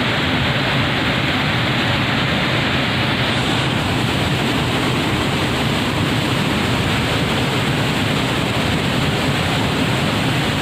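Cimarinjung waterfall's heavy, fast-flowing water pouring and rushing in a steady, loud, unbroken wash of noise.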